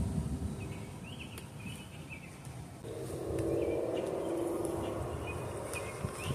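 Birds chirping in short repeated calls, with a low rumble fading away at the start and a steady droning hum coming in about three seconds in.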